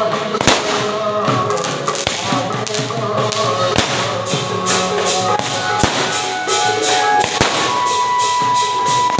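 Firecrackers bursting over music: a dense crackle of small cracker explosions with five heavier bangs spaced about one and a half to two seconds apart.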